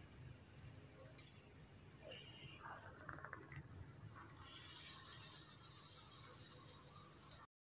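Faint hiss from shallots, garlic and red chillies dry-roasting in a nonstick pan over a gas flame, growing louder a little past halfway, over a steady high-pitched tone; the sound cuts off suddenly near the end.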